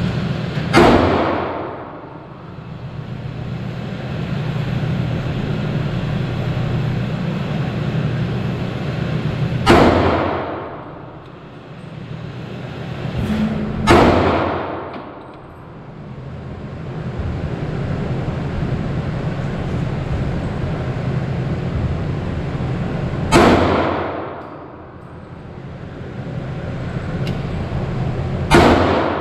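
Five single shots from a Smith & Wesson M&P Shield .40 caliber pistol, fired slowly with several seconds between them, each ringing out in the indoor range. A steady low hum runs underneath.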